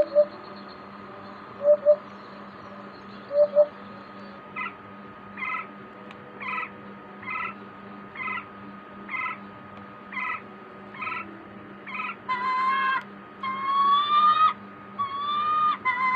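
A series of animal calls. First come paired low hoots, then a regular run of short calls about once a second, then longer calls that rise in pitch near the end.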